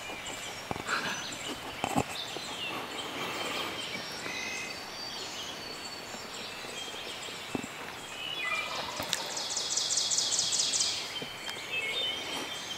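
Songbirds singing in a dawn chorus, with a wild turkey gobbling in the distance: a rapid rolling call about nine to eleven seconds in.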